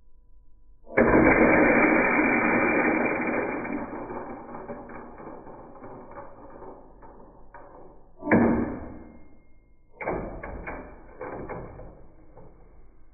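Lionel postwar helicopter-launching car being fired: a sudden loud rattling noise about a second in that fades over several seconds, then two shorter sudden clatters near the end.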